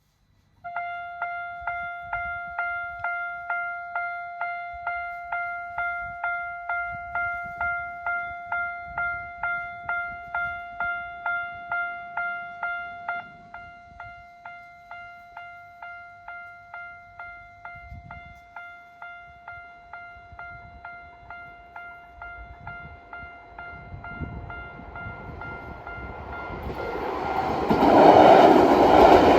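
Japanese railway level crossing's single-tone warning alarm striking one pitch about two and a half times a second. It drops to a quieter level about 13 seconds in. Near the end an Izu Kyuko train approaches and runs over the crossing, and its rumble grows loud over the alarm.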